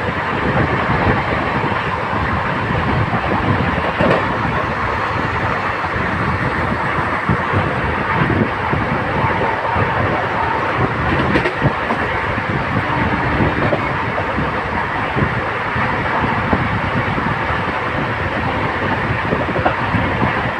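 Passenger train coach running on the track, heard from on board: a steady rumble and rattle of wheels on rails, with many small irregular knocks.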